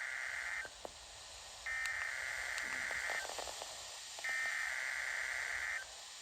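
NOAA Weather Radio EAS/SAME header data bursts: two-tone digital screeches, each about a second and a half long with a one-second pause between. The end of one burst is followed by two more, over radio static. This coded header opens an emergency alert broadcast.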